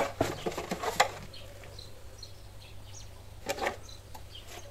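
Knocks and clatter of a petrol lawn mower being handled and tipped onto its side, ending in a sharp click about a second in, with another short scrape about three and a half seconds in. Faint bird chirps in between.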